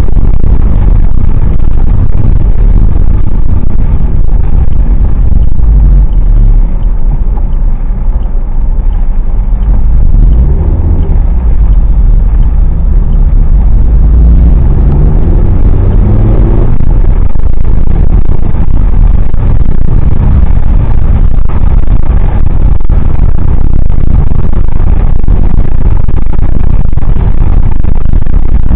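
Loud, steady low rumble of a car's engine and tyres on a wet road, heard from inside the cabin. About halfway through, the engine note rises in pitch for a few seconds as the car accelerates.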